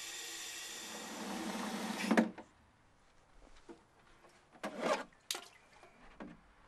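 Water running from a garden standpipe tap into a watering can, growing louder before cutting off abruptly about two seconds in. A few short knocks and scrapes follow as the can is handled.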